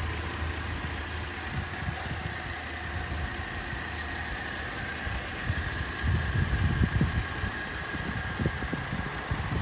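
2008 Holden Commodore engine idling steadily with the bonnet up, a thin steady whine riding above the hum. From about halfway, irregular low rumbles join in.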